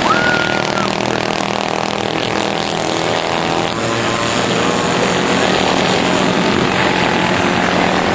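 Several racing karts' small single-cylinder engines running at speed around a dirt oval, blending into one steady, loud drone.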